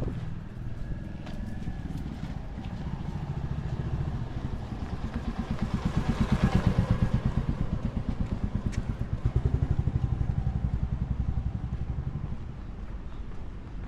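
Motor vehicles passing close by, a low pulsing engine rumble that swells twice, about six seconds in and again near ten seconds, then fades.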